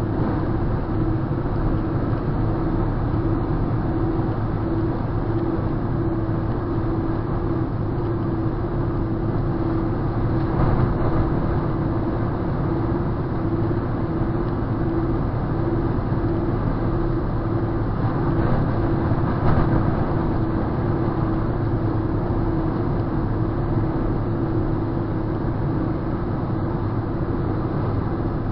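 Car cruising at highway speed, heard from inside the cabin: steady engine and road noise with a constant droning hum, and a couple of brief swells in the noise.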